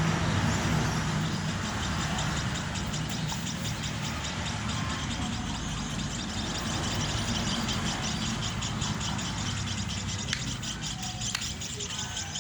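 Steady low mechanical hum, with a fast, even high-pitched pulsing running over it from about two seconds in.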